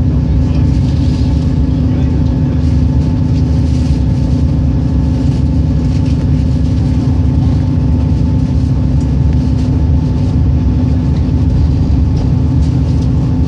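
Train running at speed, heard inside the passenger carriage: a steady low rumble with a steady hum over it.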